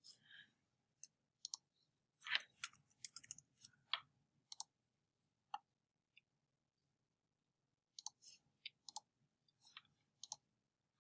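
Faint, scattered clicks of a computer mouse and keyboard, with a quick run of keystrokes about two to four seconds in.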